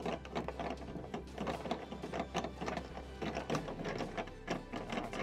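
Quick-release fasteners on an electric mower's battery compartment being undone by hand: a quick, irregular run of clicks and clatter.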